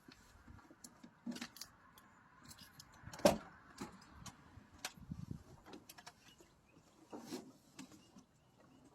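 Car keys jangling amid scattered small clicks and knocks, with one louder thump a little over three seconds in.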